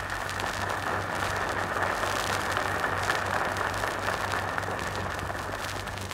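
Audience applauding in an old, muffled archival recording, with a steady low mains hum underneath; the applause starts right after a sentence ends and dies away about six seconds later.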